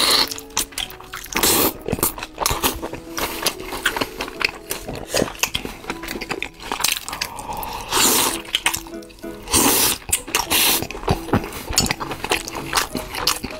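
Close-miked wet chewing and mouth smacks of people eating rice and meat, with many short clicks and wet squelches, over background music.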